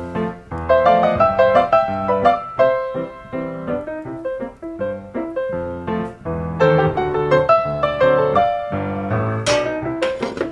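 Background piano music: a lively tune of quick, changing notes.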